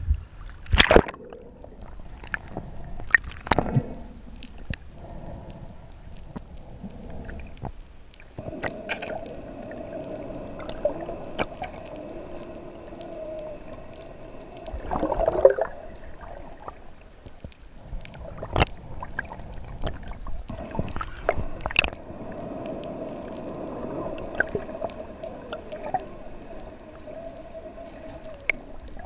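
Water sloshing at the surface, then the muffled sound of being underwater through a camera's waterproof housing: sharp clicks and knocks now and then, and a steady hum that comes and goes.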